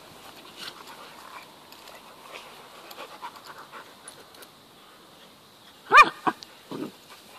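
Two dogs play-wrestling: panting and scuffling, then about six seconds in a loud, short yelp that rises and falls in pitch, followed by a shorter, lower cry.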